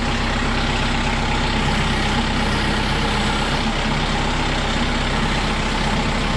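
Kubota M6060 tractor's diesel engine running steadily.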